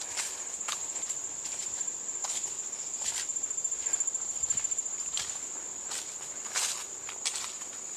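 Footsteps crunching irregularly through leaves and brush, over a steady high-pitched drone of insects.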